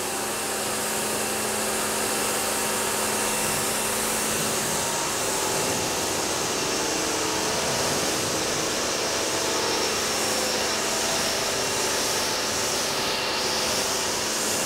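Electric pressure washer running, its jet spraying water onto a car's bonnet and front bumper to rinse off a spray-on sealant: a steady hiss of water over the hum of the pump motor.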